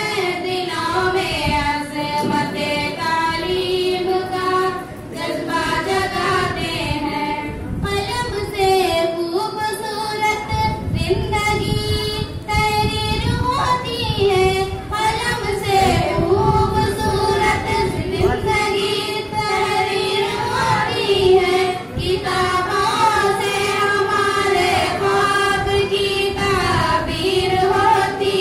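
A group of schoolgirls singing an Urdu tarana together into handheld microphones, their voices amplified.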